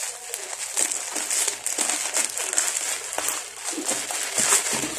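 Plastic bubble wrap crinkling and rustling as scissors cut through it, with irregular snips and crackles.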